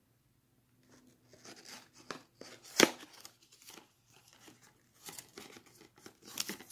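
A small cardboard box being opened by hand: the flap and the paper insert scrape and rustle in short irregular bursts. A single sharp snap about halfway through is the loudest sound.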